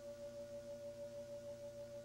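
Faint steady humming tone, several pitches held together, with a quick even wobble in loudness.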